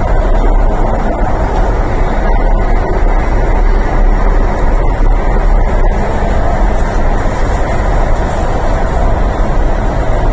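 Steady running noise of an MTR East Rail line R-Train, heard inside the passenger car: a loud, even rumble and roar of wheels on rail and motors as it runs at speed through a tunnel.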